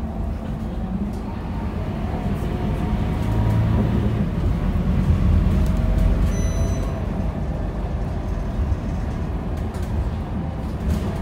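Scania K230UB city bus's rear-mounted 9-litre five-cylinder diesel running under way, heard from inside the passenger saloon: a low rumble with road noise, growing louder about four seconds in and easing back a few seconds later.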